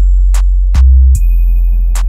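Electronic background music with heavy bass and a steady beat.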